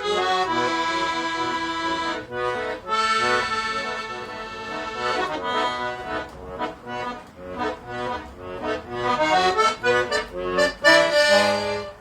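Accordion (gaita) playing: long held chords for the first few seconds, then shorter, quicker notes, stopping right at the end.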